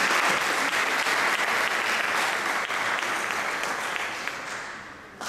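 Audience applauding, the clapping steady at first and dying away over the last second or so.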